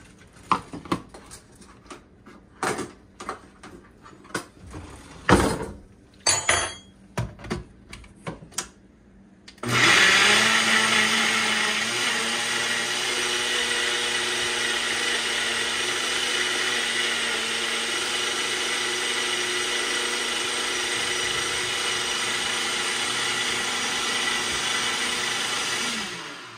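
A few scattered knocks and clicks, then about ten seconds in a single-serve personal blender's motor starts with a surge and runs steadily for some sixteen seconds, puréeing chopped vegetables and water, before cutting off near the end.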